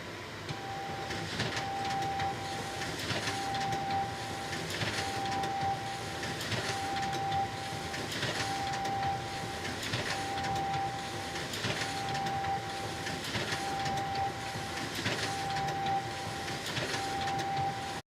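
Photocopier running through a steady repeating copy cycle: a hum with a recurring tone and a swish for each pass, until it cuts off suddenly near the end.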